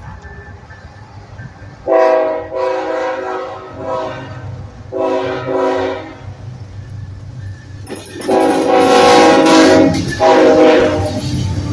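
Multi-tone horn of a CN freight diesel locomotive sounding in separate blasts as the train approaches and passes: two long blasts about 2 and 5 seconds in, then a louder, longer one about 8 seconds in and a short one near the end. A steady low diesel rumble runs underneath and grows as the locomotives come close.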